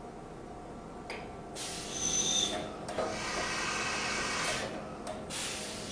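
Fadal 4020HT vertical machining center making an automatic tool change with its 25-tool side-mounted changer: several bursts of air hiss from the pneumatic tool release, the longest in the middle, with a sharp click near the end, over the steady hum of the running machine.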